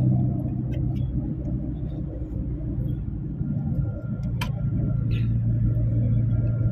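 A moving vehicle's engine and road rumble. A steady low engine hum drops away at first, leaving a rougher rumble, then comes back about four and a half seconds in. A single sharp click is heard around that point.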